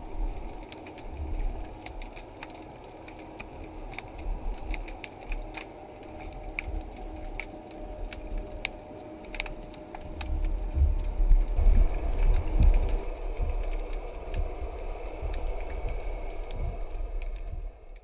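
Underwater ambience: scattered sharp clicks over a low rumble of moving water, the rumble growing louder about ten seconds in.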